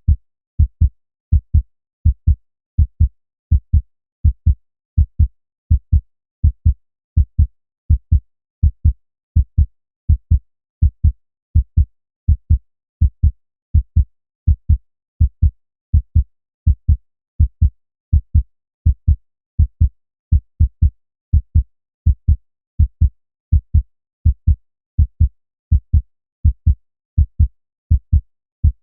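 Human heartbeat: a steady lub-dub rhythm of low, dull thuds in close pairs, repeating evenly with silence between beats.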